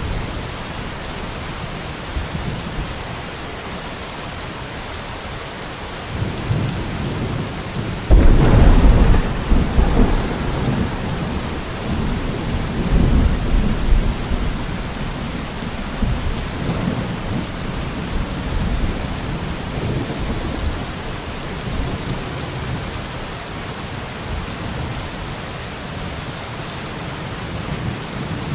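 Thunderstorm: steady rain hissing throughout, with a crack of thunder about a third of the way in that rolls on in low rumbling swells for several seconds before fading back into the rain.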